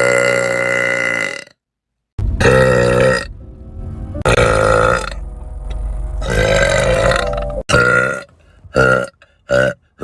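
A woman burping: a string of long, loud, deep burps, then a run of short, quick burps starting about eight seconds in.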